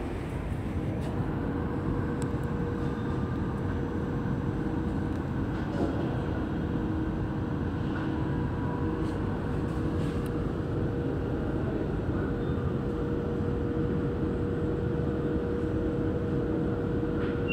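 Steady hum and rumble of a Santiago Metro NS16 train, with a constant mid-pitched tone running through it, the train standing at the platform before its doors close.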